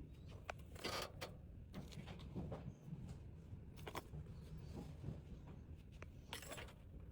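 Items and plastic packaging handled while packing an order, with several short rustling crinkles over a low steady hum.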